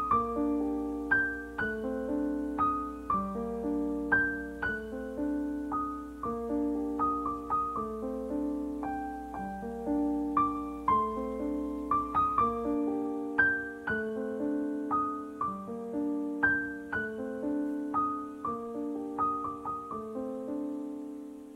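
Background piano music: a gentle, repeating pattern of single notes, each struck and left to fade.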